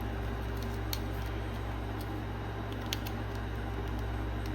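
Steady low machine hum, like a fan or appliance, with two small clicks about one and three seconds in.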